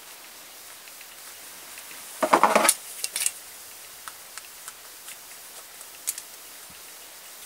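Metal snap-fastener pliers being picked up and handled: a short clatter about two seconds in, then a couple of clicks and a few light ticks as the press-stud parts and pliers' jaws are set on the fabric tab.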